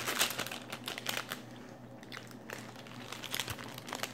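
Crisp crackling while eating a Beyond Cereal protein bar: the bar's plastic wrapper crinkles in the hand and the bite is chewed, in irregular bursts of small crackles.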